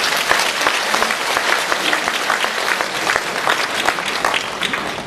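Audience applauding in a hall, a dense spatter of many hands clapping that thins out near the end.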